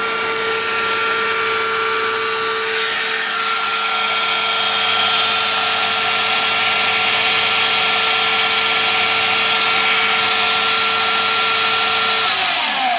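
A motor-driven machine running with a steady whine and a rushing, suction-like noise that grows stronger after about three seconds. It winds down, falling in pitch, and stops about a second before the end.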